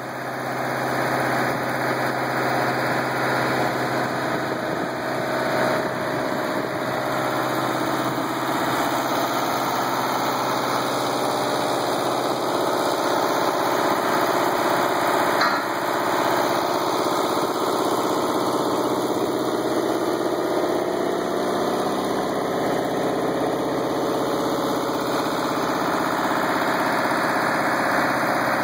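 Cross-roll pipe straightener running: a steady mechanical drone from its drive and rolls, with a low, even hum under it.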